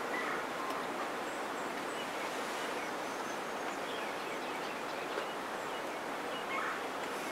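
Steady outdoor background hiss with faint, scattered bird chirps.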